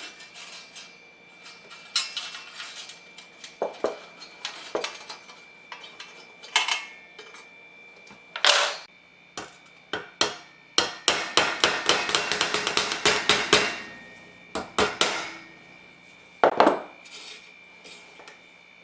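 Metal heater parts and hand tools clinking and knocking on a workbench as the space heater is worked on, irregular single knocks with a fast run of rattling clicks in the middle.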